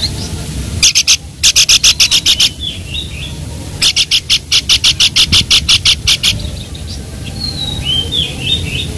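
A songbird calling: two runs of loud, rapid, sharp notes at about seven a second, the first starting about a second in and the second running from about four to six seconds, with short down-slurred whistled notes between them.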